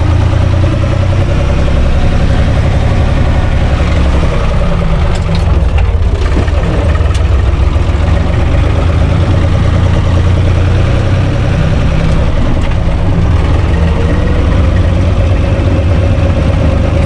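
UTB 445 tractor's diesel engine running steadily while the tractor drives along, heard from inside its cab.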